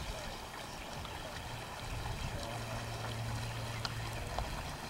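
Moving water at the waterside with a steady noise, joined by a low steady hum for a couple of seconds past the middle.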